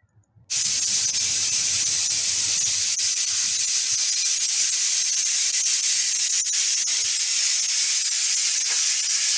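Pressure cooker whistle going off: a loud, steady jet of steam hissing, starting about half a second in.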